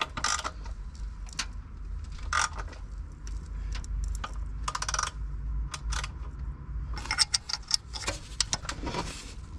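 Metal hand tools clinking and rattling against engine parts while the camshaft timing is being set, with scattered sharp clinks and a quick run of clicks near the end.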